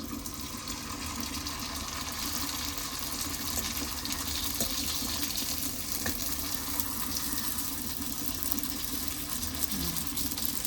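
A semolina puri deep-frying in hot corn oil: a steady sizzle.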